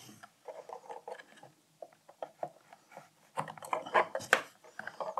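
Handling noise as a Commodore serial-bus cable is plugged into an XUM1541 Slim USB adapter board: scattered rustles and light knocks, with a few sharp plastic-and-metal clicks a little past the middle.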